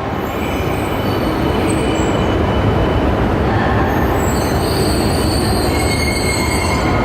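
Shinkansen train moving along an underground station platform: a steady heavy rumble, with thin high-pitched wheel squeal joining from about four seconds in.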